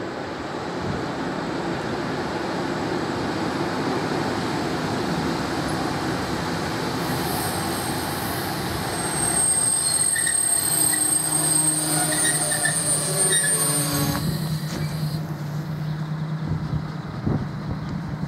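ČD class 842 diesel railcar pulling into a station, its running rumble growing louder as it nears. From about seven seconds in, high squealing sets in as it brakes and slows, then fades out near fifteen seconds. A steady low diesel engine drone carries on underneath.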